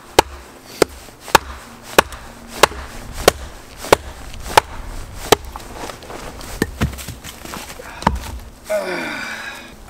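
Wooden wedges being driven into a log with a wooden bushcraft mallet to split it: about a dozen sharp wooden knocks, roughly one every two-thirds of a second. Near the end a man cries out and groans in pain, having struck his own finger.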